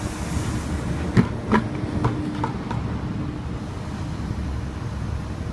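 Excavator engine running with a steady low rumble, two sharp knocks a little over a second in, and a short steady whine that lasts about two seconds.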